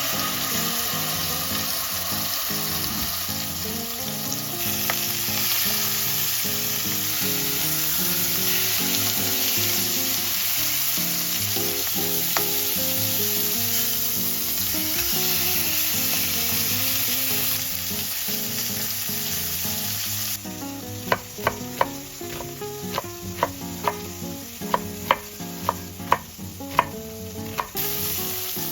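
Food frying in a hot pan, a steady loud sizzle. About two-thirds of the way through, the sizzle drops back for several seconds while a utensil stirs the pan, knocking sharply against it a dozen or so times, and then the sizzle rises again.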